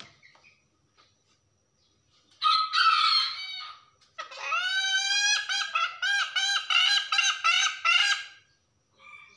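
Domestic hen's loud 'ngekek' cackle, which the keeper takes for a hen calling a rooster. About two seconds in comes one loud squawk. After a short pause comes a drawn-out rising note, then a quick run of repeated notes, about three a second, ending near the close.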